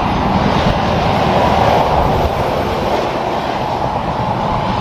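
Tractor-trailer passing at highway speed: a steady roar of tyres and engine with a tyre hum that is strongest a second or two in and eases as the truck moves off.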